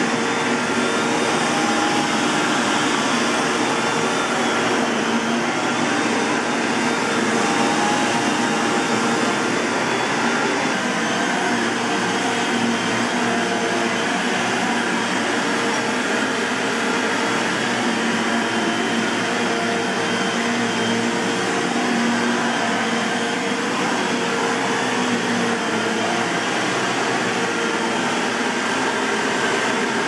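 Bissell Lift-Off Revolution Pet upright bagless vacuum cleaner running on carpet, its motor and brush roll making a steady, unbroken whir with a constant hum. The brush roll turns on newly fitted bearings.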